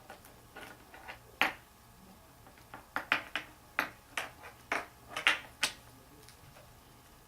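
Sharp, irregular clicks and taps from cockatiels at play: one loud tap about a second and a half in, then a quick run of about a dozen in the middle.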